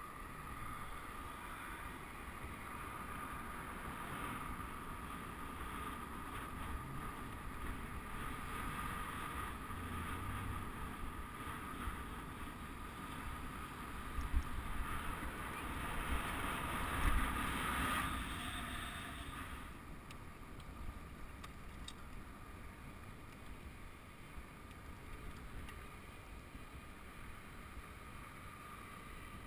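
Wind rushing over the microphone of a camera riding on a road bike, with tyre noise on asphalt: a steady rushing that grows louder for a few seconds about halfway through, then eases.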